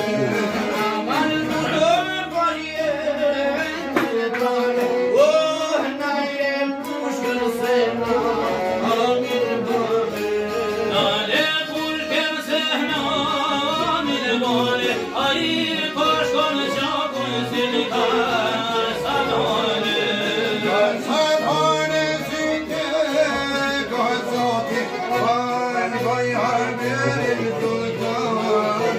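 Live folk music from a violin and long-necked plucked lutes: the violin plays an ornamented, sliding melody over steady strummed lute accompaniment.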